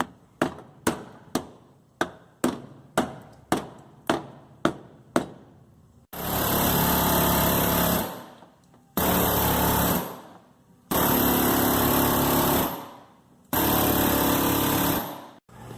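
Ball-peen hammer striking metal about a dozen times, roughly two blows a second, then a power tool running in four bursts of about a second and a half to two seconds each.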